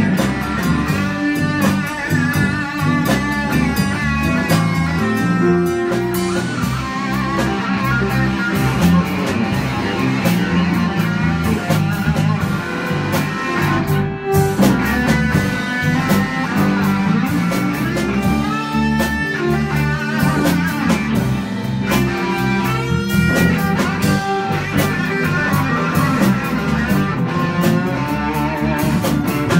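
Live blues band playing: electric guitar leads over drums, with a harmonica wailing and bending notes.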